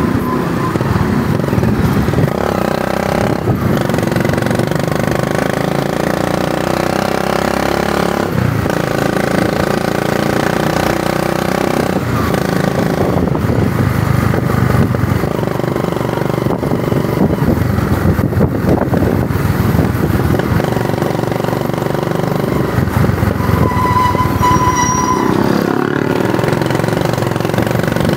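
A small motorcycle engine running while carrying a rider and passenger. Its note rises and falls several times as the throttle opens and closes, with steady wind and road noise over it. A brief steady high tone sounds near the end.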